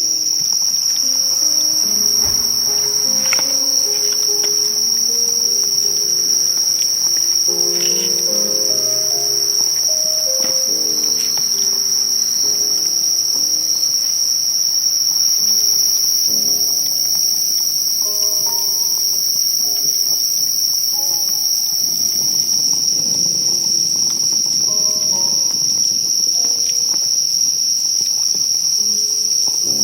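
Late-summer chorus of crickets and other insects: a steady, unbroken high-pitched drone, with soft low notes coming and going underneath.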